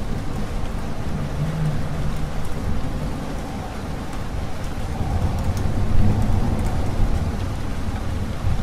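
Steady rain falling, with a low rumble of thunder building in the second half and loudest about six seconds in.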